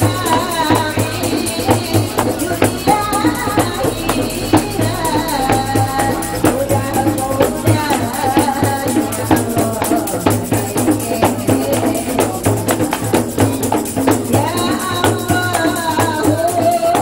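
A woman singing a melody into a microphone through loudspeakers, with hand-beaten frame drums (rebana) and a jingling tambourine keeping a steady beat underneath.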